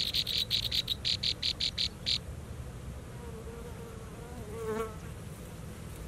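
Nestling birds begging: a quick run of about a dozen high, evenly spaced chirps, roughly five or six a second, for about two seconds. A short, lower, wavering call follows a couple of seconds later.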